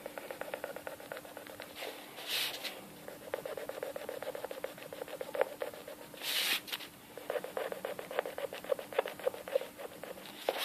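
Rubber eraser rubbed rapidly back and forth on paper, rubbing out pencil lines. Two brief hissing bursts come through, about two and six and a half seconds in.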